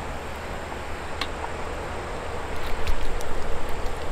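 Baitcasting reel being cranked to bring in a hooked fish, a steady mechanical whir with a few sharp clicks, over a low rumble of wind on the microphone. It grows louder and more uneven from about halfway.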